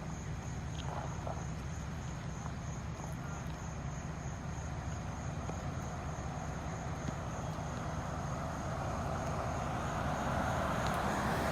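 Ambulance engine running with a steady low hum, heard from inside the cab, with a faint high-pitched pulsing tone throughout. A rushing noise swells louder over the last few seconds.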